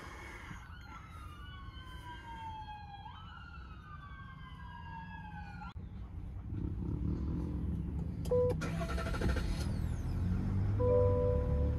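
Emergency-vehicle siren wailing outside, several sweeping tones rising and falling across each other, cutting off suddenly about six seconds in. A low steady rumble follows, and near the end a repeating electronic chime sounds.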